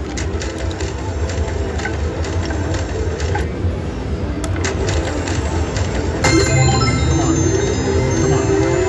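Electronic slot machine (Cash Machine) sounds over steady casino din: scattered clicks, then, about six seconds in, a new spin sets off electronic tones and a steadily rising whine while the reels keep spinning.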